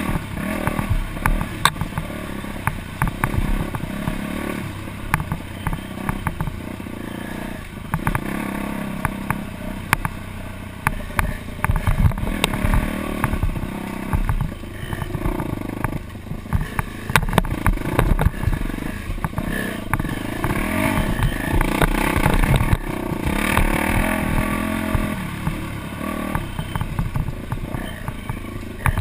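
Dirt bike engine running under way on a rough trail, its revs rising and falling as the throttle opens and closes. Frequent short knocks and rattles come from the bike over the bumpy ground, picked up by a helmet-mounted camera.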